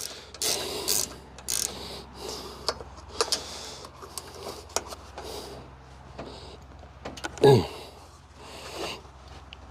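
Ratchet wrench clicking and scraping in short bouts while loosening rusted engine cover bolts, with a brief loud falling-pitched sound about seven and a half seconds in.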